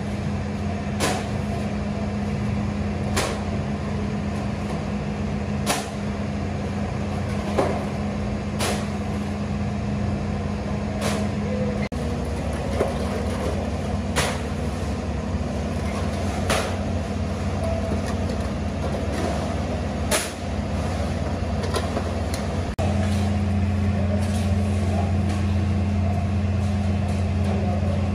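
Aluminium soda cans clinking as they are lifted from a metal tub and set down on metal shelves, one sharp clink every two or three seconds, over a steady low hum.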